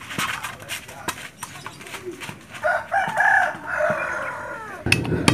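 A rooster crows once, a call of about two seconds that falls away at the end. Near the end a low rumble of thunder sets in suddenly.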